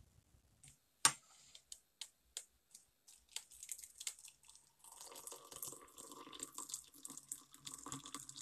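Hot water poured from an electric kettle into a ceramic mug, a faint trickle that settles into a steady pour in the second half. A sharp click sounds about a second in.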